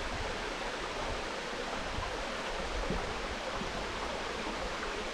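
Steady rush of falling water from a tall waterfall.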